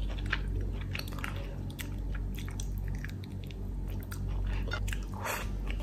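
Close-up chewing and biting of crispy deep-fried duck, bones included: an irregular run of short crunches and clicks.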